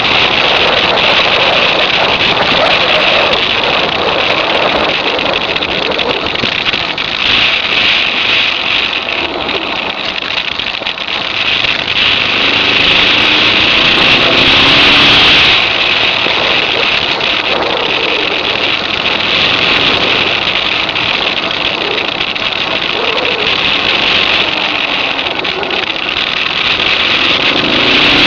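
Suzuki DR650 single-cylinder engine running at speed on a gravel track, largely covered by a steady rush of wind on the microphone; the engine's pitch rises for a few seconds around the middle.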